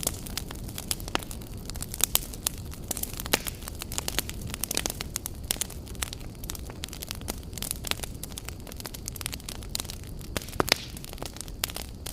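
Wood fire burning, with many irregular sharp crackles and pops of burning logs over a steady low rumble of flame.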